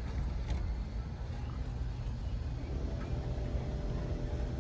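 Steady low rumble of outdoor background noise, with a faint held hum joining about three seconds in.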